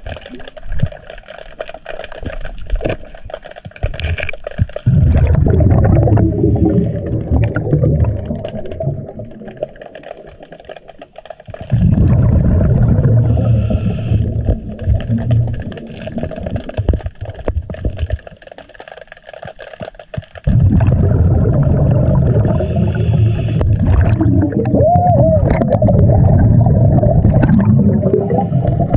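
Scuba diver's exhaled breath bubbling out of the regulator underwater, in three long bursts of several seconds each with quieter breaths in between.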